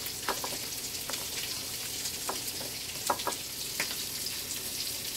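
Hot oil sizzling steadily in a frying pan, with scattered crackles, as mashed-potato-flake-coated vegan chick'n cutlets shallow-fry.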